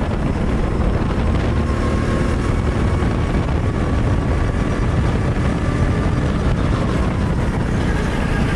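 Go-kart engine running hard down the straight, heard from the driver's seat, then easing off as the kart slows for a corner near the end.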